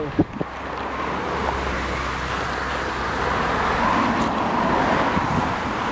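Road traffic: cars passing on a busy road, a steady rush of tyre and engine noise that builds over the first second and is loudest about four seconds in.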